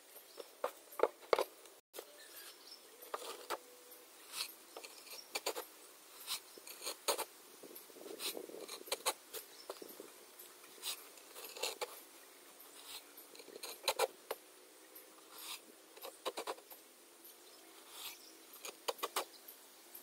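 Irregular light scraping and tapping as hands work at freshly cast sand-cement blocks and their wooden mould.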